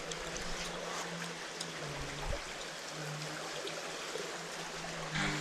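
Steady rush of flowing water, like a stream, with a faint low hum that comes and goes.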